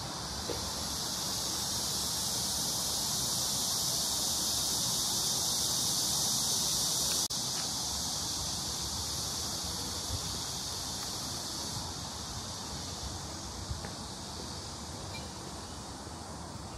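A chorus of insects making a steady, high, shrill hiss. It swells, drops sharply about seven seconds in, then carries on a little quieter.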